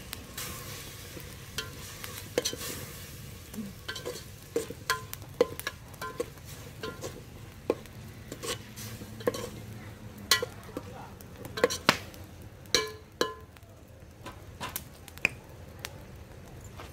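A spoon stirring minced mutton (keema) frying in a metal pot, with irregular scrapes and clinks of the spoon against the pot, a few of them ringing briefly, over a low sizzle.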